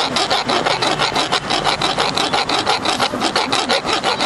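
A cobbler's hand tool rasping at a bag's fitting in a fast, even rhythm of about eight strokes a second.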